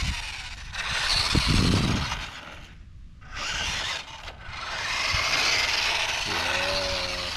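WPL D12 RC kei truck driving over rough exposed-aggregate concrete: its small electric motor and gears run while the plastic tyres grind and rattle over the pebbly surface. The noise drops out briefly about three seconds in as the truck stops, then picks up again.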